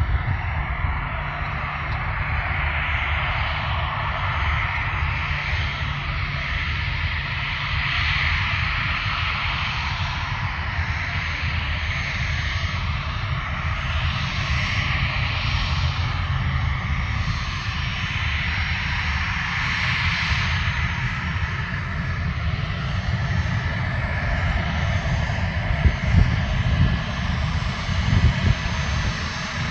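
Bombardier Challenger 3500 business jet's twin turbofan engines running steadily, a continuous jet hiss and rumble that swells and fades a little every few seconds.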